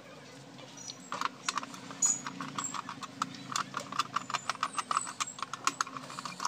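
Quick, irregular plastic clicks and taps, several a second, starting about a second in, as fingers handle and work loose a quartz wall clock movement from its plastic case.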